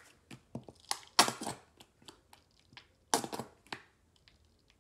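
Plastic squeeze bottle of mayonnaise being squeezed out, in two short bursts of crackling and squirting about two seconds apart, with light clicks of handling between them.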